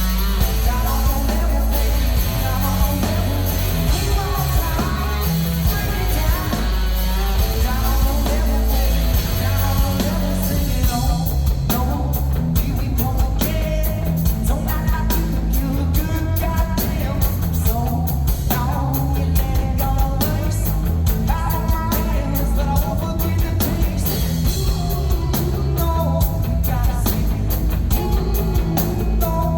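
Rock band playing live: electric guitar, drums and a singer, loud and continuous.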